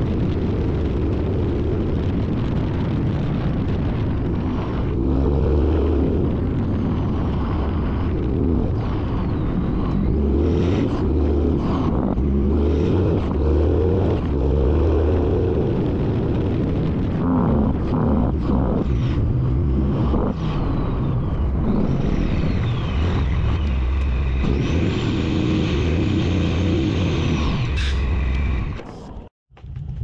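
Wind rushing over an outside-mounted camera on a pickup towing a flatbed trailer at road speed, together with the tyre and road noise of truck and trailer: a steady, dense rumble that cuts off abruptly near the end.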